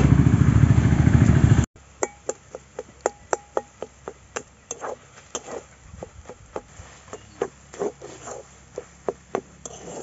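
A loud low rumble for about the first second and a half, cut off abruptly. Then a metal spatula clinks and scrapes against a metal kadai in irregular knocks, two or three a second, some ringing briefly, as boiled jute leaves and potato pieces are stirred.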